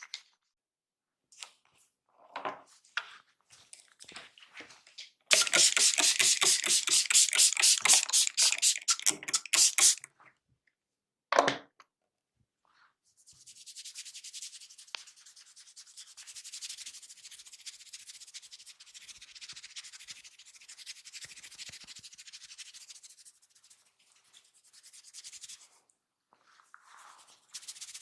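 Close-miked rubbing and scratching of hair and scalp during a head massage. Scattered short rubs give way to about five seconds of loud, quick rhythmic strokes, then one more loud rub, then a long stretch of softer, steady rubbing.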